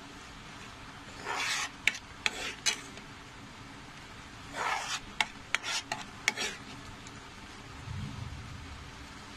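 A spoon stirring and scraping a thick, boiling mango and cornflour glaze around a non-stick pan. It comes in two bouts of strokes, with sharp clicks of the spoon against the pan.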